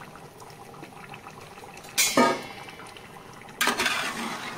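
Metal ladle clattering against a cooking pot of boiling water with rice in it, over a low steady simmer. There are two loud knocks, a short ringing one about two seconds in and a longer clatter near the end.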